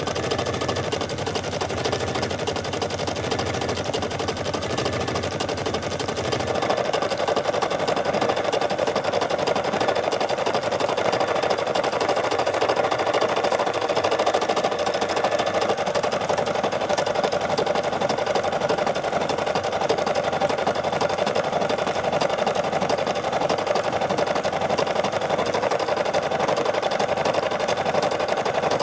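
Brother SE600 embroidery machine stitching at speed, a fast, even needle rattle with the whir of the embroidery arm moving the hoop. It gets louder about six seconds in.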